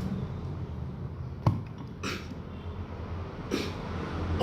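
A child with a cold coughing briefly, two short coughs about two seconds in and again near the end, with a sharp knock just before the first.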